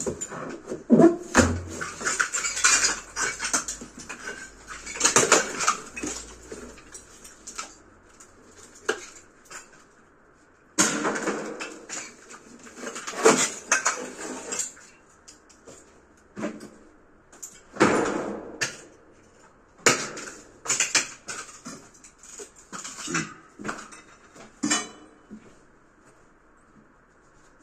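Ceramic wall tiles and plaster being struck and pried off a concrete wall with a pry bar: irregular knocks, scraping and the clatter of tile pieces breaking away and falling, in bursts with short pauses between them.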